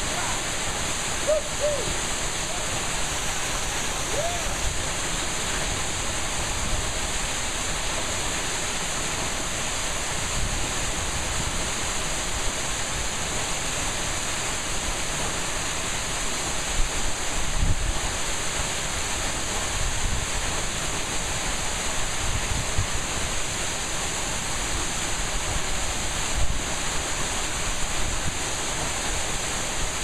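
Tall waterfall pouring into a plunge pool: a steady, unbroken rush of falling water.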